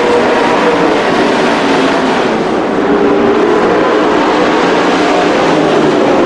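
Engines of several dirt-track race trucks running hard in a pack, a loud steady mix of overlapping engine notes at different pitches.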